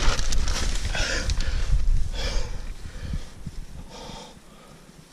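A person breathing close to a phone's microphone: a few soft, hissy breaths that grow fainter, over low rustling from the phone being handled.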